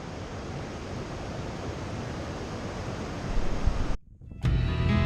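A steady rushing noise, like surf or wind, that grows a little louder and cuts off suddenly about four seconds in; after a brief gap, acoustic guitar music starts.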